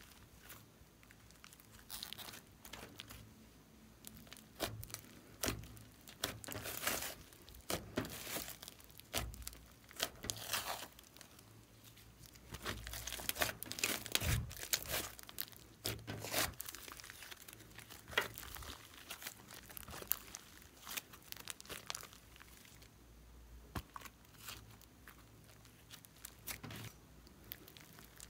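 Thick slime being worked by hand, stretched, squeezed and pressed flat. It gives off irregular sticky crackles and clicks that come in clusters, busiest about halfway through.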